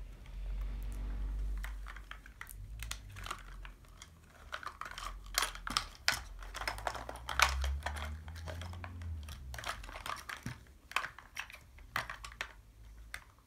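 Crinkling and tearing of a surprise ball's paper wrapping as it is peeled off by hand, with many scattered sharp crackles and clicks.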